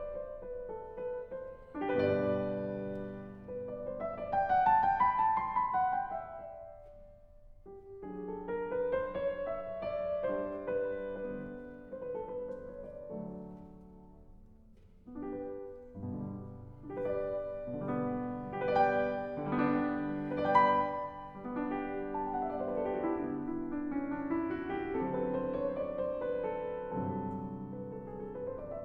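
Piano music playing melodic phrases, with short pauses about seven and fourteen seconds in.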